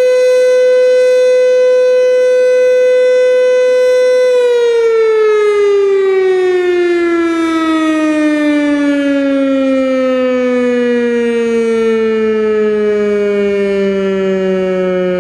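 American Signal T-121 electromechanical outdoor warning siren sounding one steady, loud tone, then about four seconds in its pitch begins a long, slow fall as the siren is shut off and its rotor winds down.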